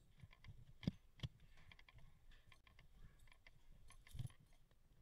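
Faint scattered clicks and knocks of rappelling gear and climbing shoes against a sandstone wall during a descent on rope, with a few louder knocks about a second in and near the end.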